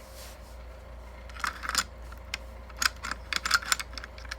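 Steel parts of a Micro Draco pistol clicking and clacking as it is handled and fitted back together, a quick run of sharp clicks starting about a second and a half in.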